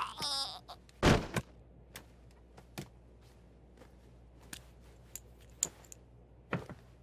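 A man's strangled cry trailing off, then a heavy thud about a second in. Sparse small clicks and rustles follow as a metal ring is worked off a limp hand and picked up.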